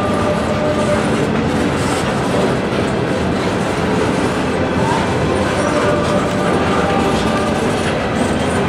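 Empty Norfolk Southern coal hopper cars rolling past, steel wheels clattering steadily on the rails.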